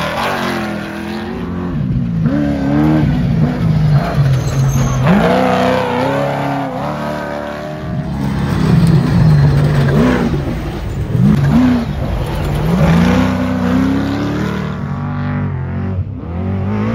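Trophy truck engines revving hard at racing speed on a dirt course, the pitch rising and falling again and again with throttle and gear changes.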